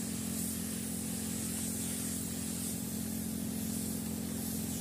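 Paint spray gun hissing as it sprays the truck's hood, the hiss swelling in a few short spells, over the steady hum of a running motor.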